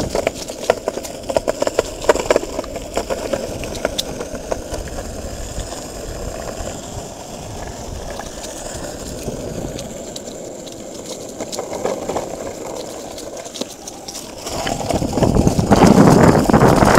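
Longboard wheels rolling over an asphalt path, a steady rumble. It runs quieter for most of the stretch, with scattered clicks in the first few seconds, and grows loud again near the end.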